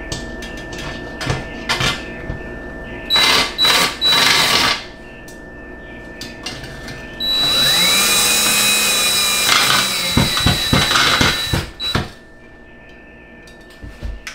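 Cordless drill/driver working into a lath-and-plaster wall to fix a shelf bracket. It gives three short bursts, then a longer run of about three seconds whose pitch climbs and then sags under load, then a few quick blips.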